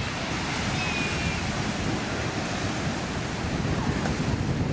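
Ocean surf breaking over a rock breakwater: a steady, unbroken rush of waves.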